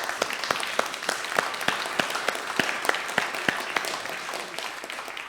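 Congregation applauding in a church, many hands clapping steadily and thinning slightly toward the end.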